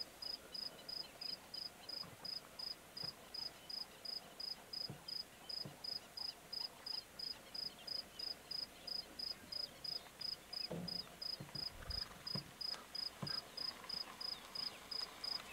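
A cricket chirping in an even, high-pitched pulse, about three chirps a second without a break. A few soft low thumps come in the second half.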